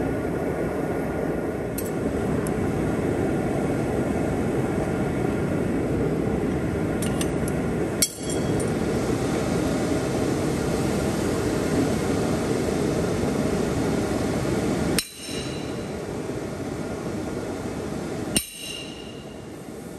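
A steady rushing from the running forge, with three sharp metal-on-metal strikes that ring, about eight, fifteen and eighteen seconds in. The rushing drops a little after the second strike.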